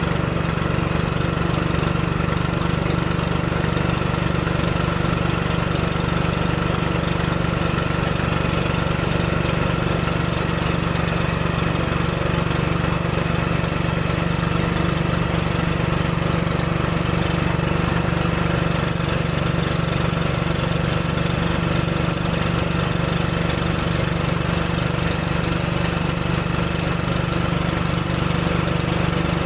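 Engine of a wooden river boat running steadily while the boat travels, an even drone that holds the same pitch and level throughout.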